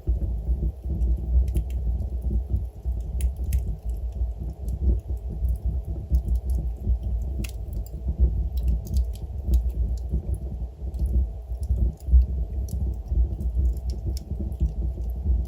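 Wood fire burning in a fireplace, with a steady low rumble of the flames and scattered sharp crackles and pops from the burning logs.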